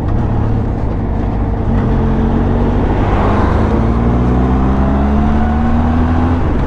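Benelli TRK 502X's parallel-twin engine running at road speed under wind rush. The engine note climbs steadily from about two seconds in as the bike accelerates.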